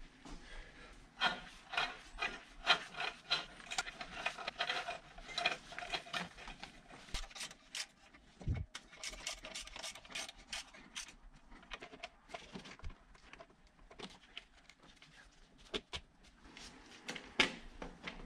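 Hand-tool work on engine parts: a run of short rasping, clicking strokes about three a second for several seconds, then scattered clicks and knocks, with one dull thump about eight and a half seconds in.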